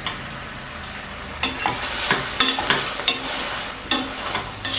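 Metal tongs clinking against a stainless steel pan as braised pork ribs are turned in a thickened gravy, over a steady sizzle from the reducing sauce. The clicks begin about a second and a half in and come roughly twice a second.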